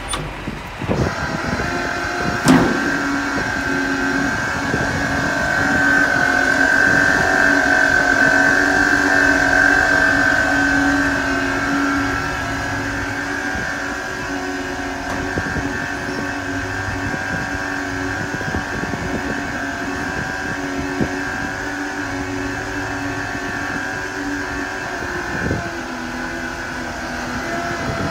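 Avgas fuel truck's pumping system running steadily with a constant whine while fuel circulates through the hose, with a single sharp metallic clank about two and a half seconds in.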